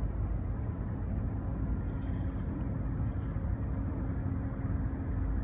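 Marine engine running steadily: a low rumble with a steady hum.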